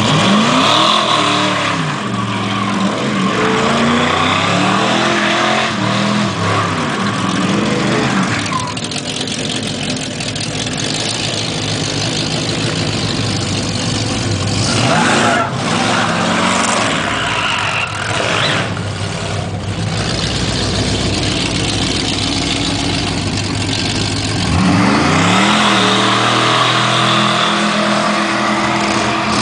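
Dodge Charger's engine revving hard during a burnout, its pitch sweeping up and down repeatedly. For a long stretch in the middle it gives way to a steadier, rushing noise, and the sweeping revs return near the end.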